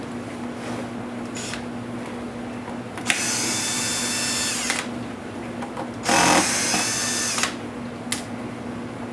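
Electric screwdriver running twice, about a second and a half each time, with a high motor whine, backing screws out of a laptop case. The second run starts louder. A couple of small clicks fall before and after the runs.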